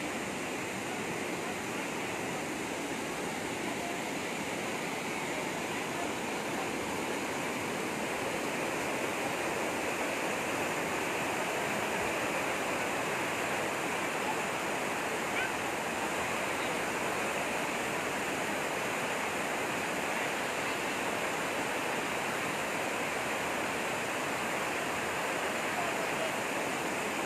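Fast-flowing water rushing steadily, swollen and running hard after days of rain.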